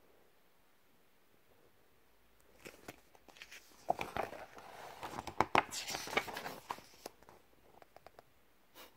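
A paper page of a picture book being turned: rustling and crinkling with small clicks, starting about two and a half seconds in and fading out near the end.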